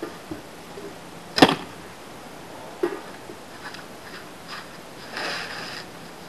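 A carbon arrow shot from a 45-pound recurve bow hits a block archery target with a single sharp thud about a second and a half in. Quieter knocks follow, and near the end there is a short rustle as the target is handled.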